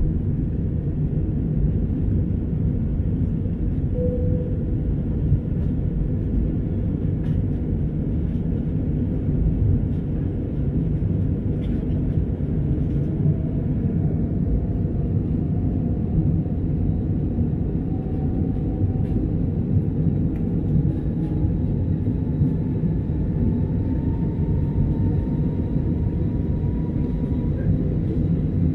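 Airbus A319 cabin noise in the initial climb after takeoff: a steady low rumble of the jet engines and airflow, heard from inside the cabin. Through the second half a faint whine rises slowly in pitch.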